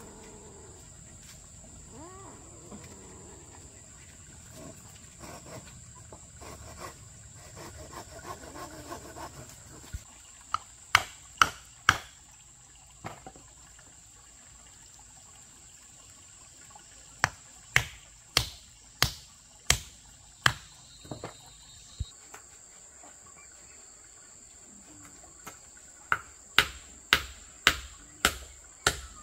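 Sharp knocks of a hand tool striking, in runs of four to seven about two a second, starting about ten seconds in, over a steady high-pitched drone of insects.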